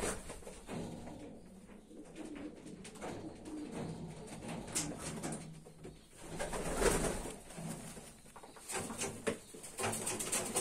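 Racing pigeons cooing, with a few brief clicks and rustles.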